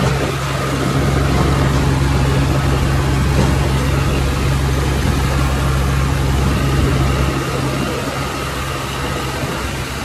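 Farm tractor's diesel engine running steadily under way, heard from the driver's seat with road and wind noise; it gets a little quieter in the last few seconds.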